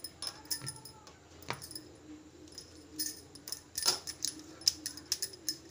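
Bangles on the wrist clinking in quick, irregular jingles as the hands roll balls of dough, with a faint steady hum underneath.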